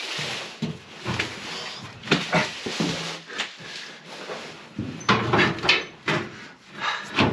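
A new 22-gallon metal fuel tank being shoved up into place beneath a van: repeated knocks and scrapes as it bumps the frame and hoses, mixed with a man's short straining grunts.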